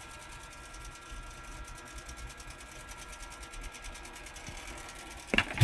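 AnaJet mP5i direct-to-garment printer's mechanism running, a steady motor hum with fast, even ticking, as the print carriage is put back in and secured. A single loud clunk near the end.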